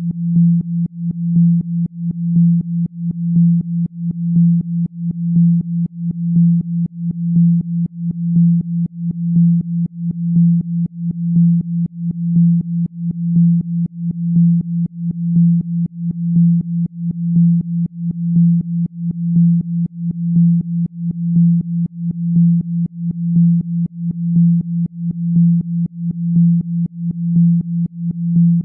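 A single steady low electronic tone, a little under 200 Hz, swelling and fading in loudness about once a second. It is a Rife frequency played for spinal regeneration.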